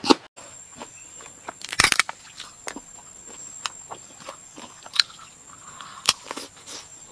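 Close-miked crunching and chewing of crispy food, sharp crunches with a loud cluster of bites about two seconds in and single crunches later, with a faint steady high-pitched tone behind them after about a third of a second.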